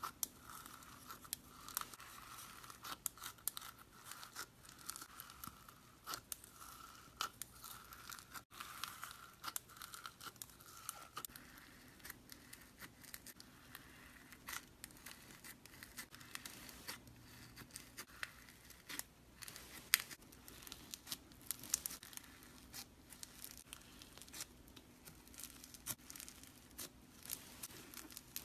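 Snow slime being stretched and squeezed by hand, giving a steady run of soft, irregular crackles and tearing sounds, with one sharper crackle about two-thirds of the way through.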